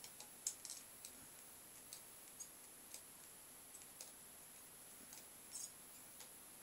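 Near silence with faint, irregular small clicks and crackles, a few each second, as solder is melted onto circuit-board pins with a soldering iron.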